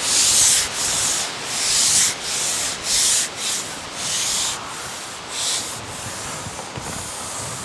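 A rhythmic scraping hiss in regular strokes, about one every three-quarters of a second, weakening and dying away near the end.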